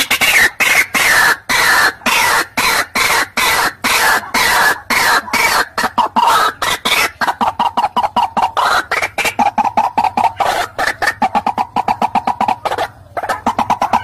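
White-breasted waterhen calling: a loud, fast run of harsh, repeated croaking notes. The notes come about three a second at first and speed up to about five a second, with a short break near the end. It is the species' call played as a lure to draw rival birds in.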